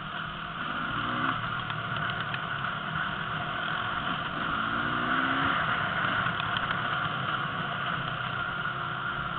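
Enduro dirt bike engines running on a trail ride, heard from a following bike close behind another, with brief rises in revs about a second in and again around four to five seconds in.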